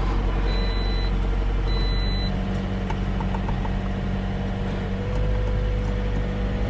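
Toyota car's engine idling with the climate-control blower running, heard from inside the cabin as a steady hum. A quick run of short ticks about three seconds in as the climate-control buttons are pressed.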